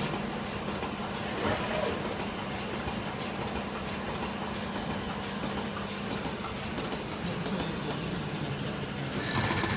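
Europlacer pick-and-place machine running, a steady mechanical whir with a constant hum. Near the end a quick run of sharp, evenly spaced ticks begins, about eight a second, as the placement head works.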